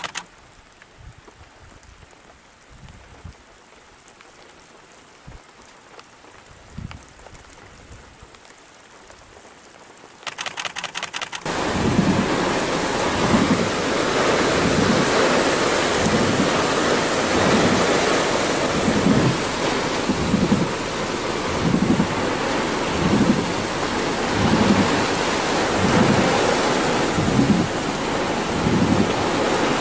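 Thunderstorm with heavy rain and strong gusts. For about the first ten seconds it is fairly quiet, with faint low rumbles. After a brief rapid crackle about eleven seconds in, loud steady rain hiss and wind set in, with repeated low thumps.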